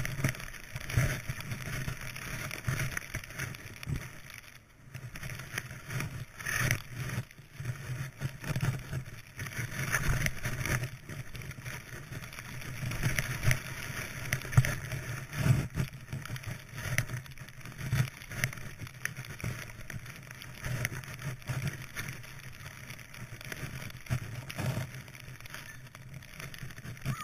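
Skis hissing through deep powder snow, swelling and fading irregularly with each turn, over a steady low rumble on the skier's own camera microphone.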